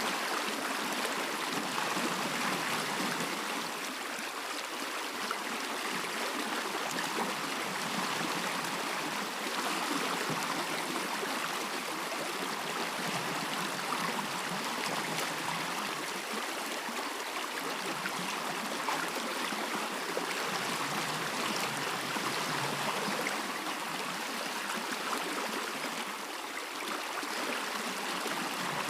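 Stream water running steadily: a continuous, even rush and babble of flowing water.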